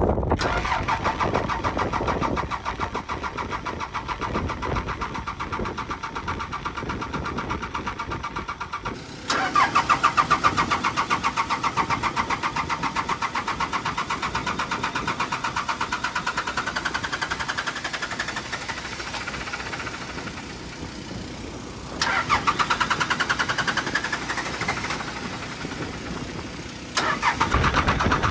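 John Deere diesel irrigation engine cranking over on its starter in long spells, with an even chugging rhythm and a starter whine that climbs in pitch, picking up again after brief drops. It never catches and runs: the engine fails to start, which the owner blames on miswired electrics.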